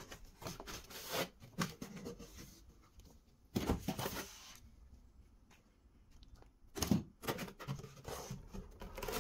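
Paper and cardboard rustling as a cardboard box is unpacked and its manual and packing sheet are handled, with soft knocks and scrapes; the loudest bursts come a little over a third of the way in and again about three-quarters through.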